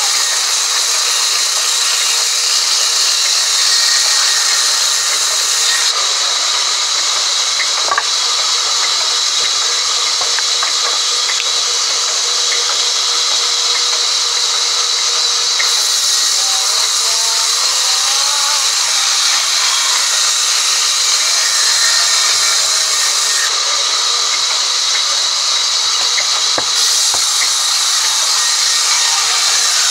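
Sawmill band saw running and ripping a log lengthwise as it is fed through the blade: a steady, loud, high-pitched rushing noise that never lets up.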